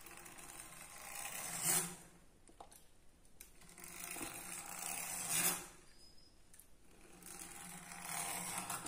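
A fluted pastry-cutter wheel rolled through a sheet of rolled dough on a wooden board, cutting it into strips: three slow strokes, each a rolling noise that builds for about two seconds and then stops.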